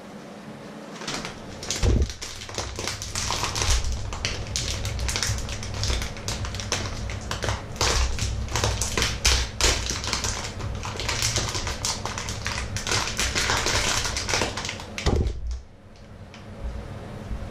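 A crinkly food packaging bag rustling and crackling as it is handled and opened, a dense run of crackles that stops suddenly about fifteen seconds in. A single thump about two seconds in.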